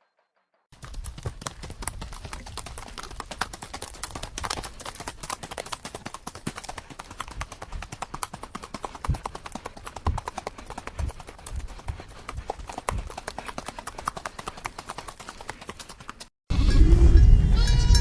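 Horse hooves clip-clopping, a quick irregular run of knocks on hard ground. Near the end it cuts abruptly to loud livestock bleating.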